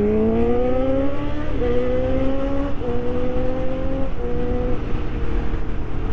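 Motorcycle engine accelerating hard up through the gears: the pitch rises, then drops sharply at each of three quick upshifts. After the last shift it settles into a steady cruise with road and wind noise.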